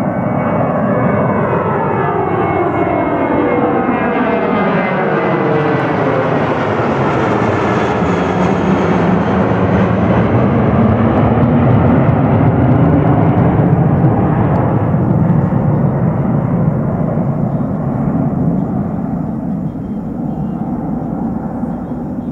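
Twin turbofan engines of an Airbus A320-family airliner at climb thrust as it passes overhead after takeoff. A rushing jet noise sweeps down in pitch as the plane approaches and passes, is loudest a little past the middle, then fades as it climbs away.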